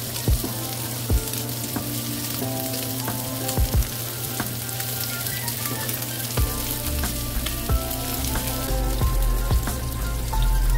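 Cubed pork belly sizzling in hot fat in a nonstick frying pan, with sharp clicks of metal tongs against the pan as the pieces are turned.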